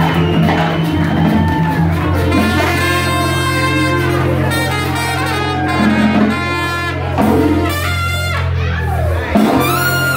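Live brass band playing jazz: trombones, trumpets and saxophone over sustained low bass notes. The low notes stop near the end, followed by a rising high note.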